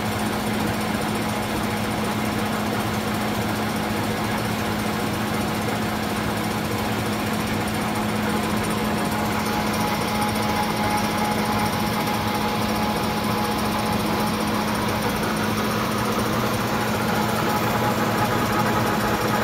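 A 15" x 54" Leblond Regal Servo Shift engine lathe running with the spindle turning and the power feed engaged: a steady mechanical hum of the gearing and drive with a fainter higher whine, growing slightly louder about halfway through.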